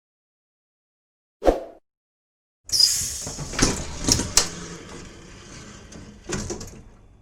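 Bus door mechanism working: a single thump, then a sudden hiss of air with several clunks as the doors move, fading out.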